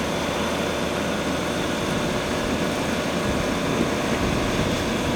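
Ford Sport Trac pickup engine running with a steady drone, holding an even pitch with no revving.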